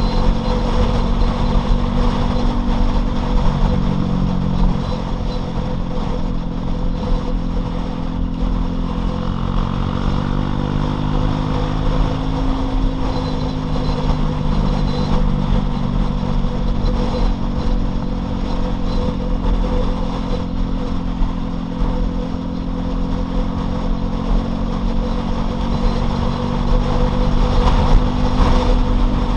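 Loncin LX250-12C 250 cc motorcycle engine running steadily while being ridden, its note dipping a few seconds in and climbing again near the middle as the speed changes, over a steady low rumble.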